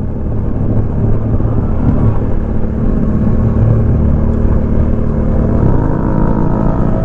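Kawasaki Dominar 400's single-cylinder engine running steadily on its stock exhaust while riding at road speed, heard from the rider's seat with wind and road noise. The sound fades up over the first second, and the engine note shifts about six seconds in.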